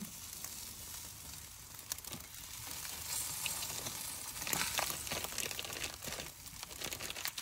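Sausages and chicken leg quarters sizzling on a hot grill grate over lump charcoal, a steady hiss with scattered crackles that swells a little about halfway through.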